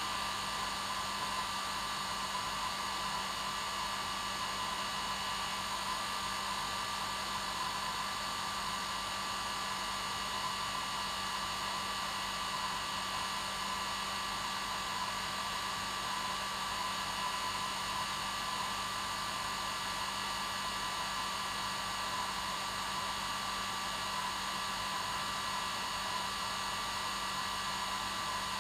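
Hair dryer running steadily on its normal setting: an even rush of air with a few steady tones in it.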